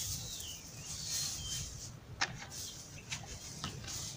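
Dry rice husks pouring out of a plastic bucket into a pot, a steady hiss that stops about halfway through. A few light knocks and scrapes follow as a hand spreads the husks inside the pot, the sharpest knock about two seconds in.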